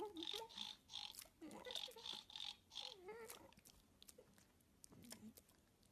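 Faint soft grunts and mouth-smacking from a piglet, mostly in the first three seconds, then only a few light clicks.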